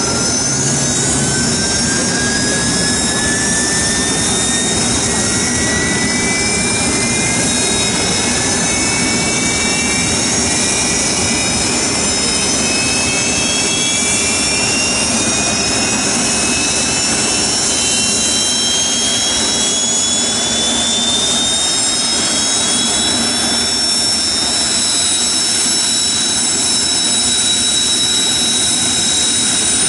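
Kawasaki T-4 jets' turbofan engines running with a steady high whine. Further whines rise slowly in pitch over about twenty seconds as more engines spool up.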